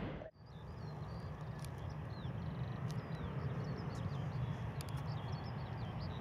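Small birds chirping, many short rising and falling chirps over a steady low rumble, with a few sharp ticks. About a third of a second in, the louder sound before it cuts out abruptly.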